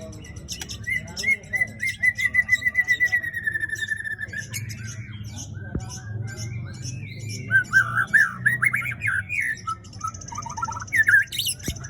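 White-rumped shama singing: a fast run of repeated notes lasting about three seconds, then varied quick whistled phrases and sharp high chips.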